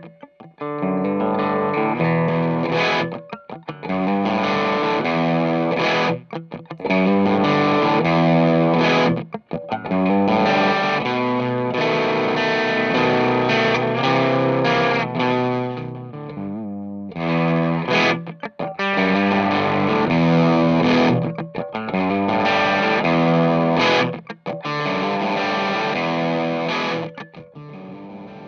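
Electric guitar, a 1998 Dan Armstrong Ampeg, played through a Fuzzrocious Dark Driving low-gain overdrive pedal: distorted riffs in phrases, with a short pause about two-thirds of the way through.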